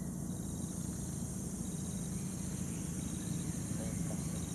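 Insects calling: a steady high-pitched chorus with a short chirp repeating about once a second, over a low steady rumble.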